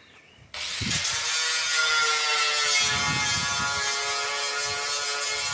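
Angle grinder switching on about half a second in and then grinding steadily, its whine sagging slightly in pitch under load. It is grinding down the pin that passes through a sliding-gate wheel, to free the seized wheel.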